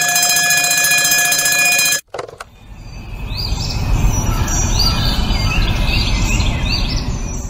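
Sound-art soundtrack: a steady buzzing chord of several tones stops abruptly about two seconds in, a couple of sharp clicks follow, then a low rumble swells with short high bird-like chirps repeating over it.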